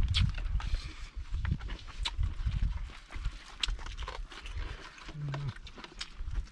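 People eating with their hands close to the microphone: chewing and lip smacking, with many small clicks and light rustling of plastic bags and food boxes, over a low rumble.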